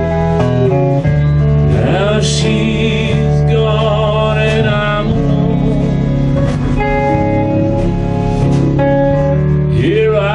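A live country band playing a song: electric bass and electric guitar over drums, with gliding, wavering lead notes.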